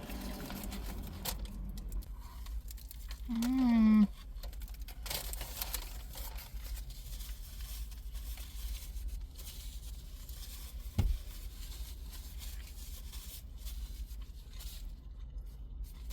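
Eating noises: chewing and crunching with paper or a chip bag crinkling and rustling. A short hummed 'mmm' rises and falls about three seconds in, and a dull knock comes near the eleven-second mark, over a steady low hum.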